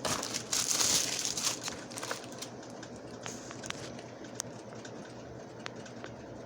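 Plastic packaging crinkling and rustling as it is handled, louder for the first two seconds, then quieter handling noise with a few light clicks.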